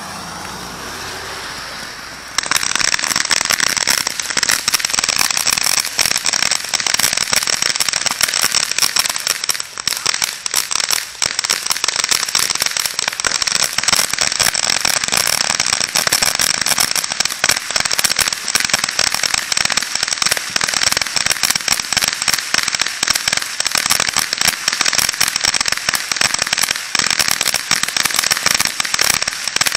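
Crackling ground fireworks fountain: a softer hiss gives way, about two seconds in, to a loud, dense, continuous crackle of many tiny pops that keeps going steadily.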